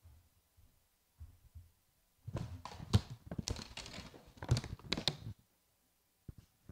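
A cluster of knocks, bumps and rustling lasting about three seconds, starting about two seconds in: things being handled and set down as the plant containers are brought to the table.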